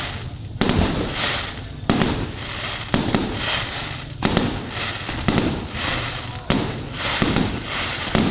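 Fireworks display: shells bursting in quick succession, a sharp bang roughly every second, each followed by a crackling hiss.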